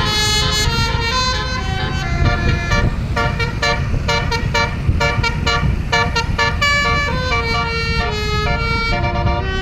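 Indonesian bus's multi-tone telolet air horn playing a rapid melody, its notes changing pitch several times a second, over the low rumble of the bus engine.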